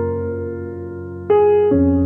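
Slow background piano music: a few notes and chords are struck and left to ring and fade, with new ones coming in right at the start and again twice near the end.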